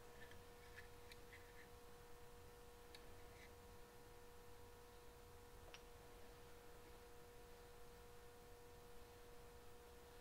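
Near silence: a faint steady hum with a few faint light ticks, mostly in the first couple of seconds.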